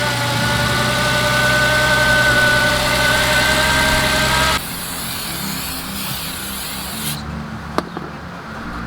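Car engine idling steadily with a whine over it. The whine and much of the sound cut off abruptly about halfway through, leaving a quieter low hum. A single sharp click comes near the end.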